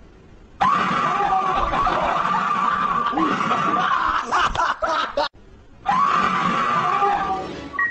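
Loud, shrill screaming breaks in suddenly and is held for about four and a half seconds. It stops for half a second and then starts again, tailing off near the end.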